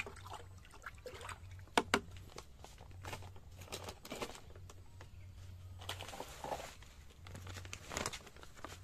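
A metal spoon stirring a spoonful of MKP fertilizer into water in a plastic bucket, with liquid sloshing and two sharp taps about two seconds in.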